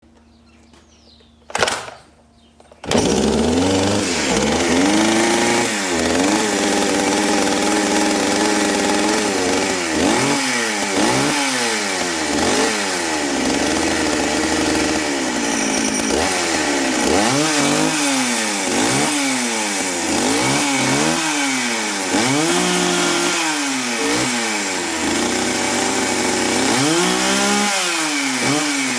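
Chainsaw engine: one short burst about one and a half seconds in, then the engine catches at about three seconds and is revved up and down over and over, its pitch rising and falling with each rev.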